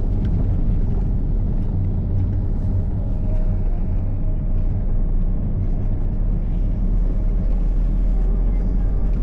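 Steady city street traffic: vehicle engines running with a continuous low rumble.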